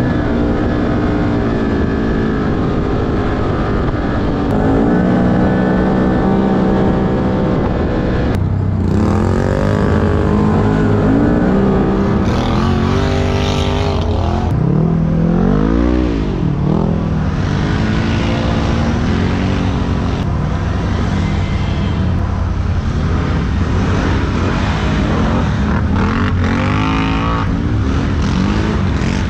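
Engine of an off-road side-by-side running on the move, its pitch rising and falling again and again as it accelerates and eases off over an uneven dirt trail.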